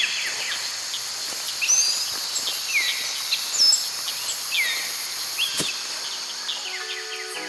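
Tropical forest ambience: a steady, high insect drone with birds calling in repeated swooping whistles. There is one sharp click a little past halfway, and music fades in near the end.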